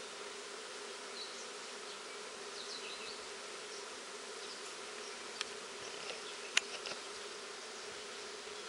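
A honeybee swarm buzzing with a steady, dense hum. Two sharp clicks come about halfway through.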